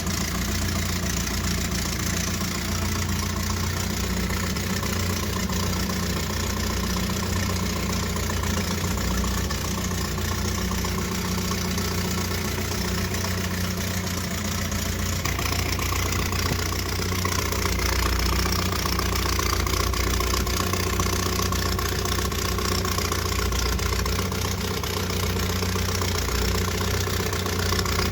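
1978 Triumph Spitfire 1500's four-cylinder engine idling steadily with a loud note like an old diesel tractor, which the owner suspects comes from a leaking exhaust.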